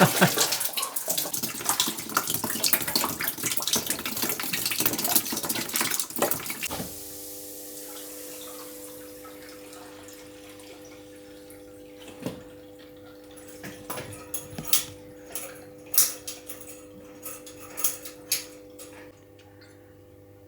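Water pouring out of a drained heating pipe into a bucket, running steadily and not stopping, then cutting off abruptly about seven seconds in. After that a faint steady hum remains, with a few scattered clicks and knocks.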